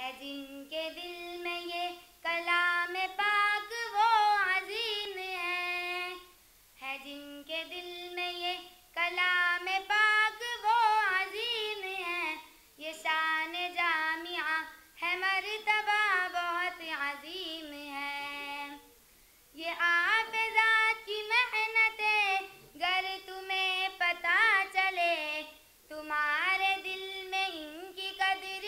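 A girl's solo voice singing a verse poem unaccompanied, in phrases of about two seconds with long held notes and short breaks between them. The longest break comes about two-thirds of the way through.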